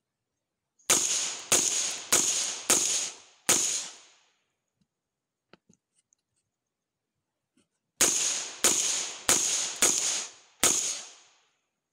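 Suppressed rifle fired in two quick strings of five shots, nearly two shots a second. Each shot is a sharp crack with a short echoing tail. The first string starts about a second in and the second about eight seconds in. This is rapid fire heating the suppressor.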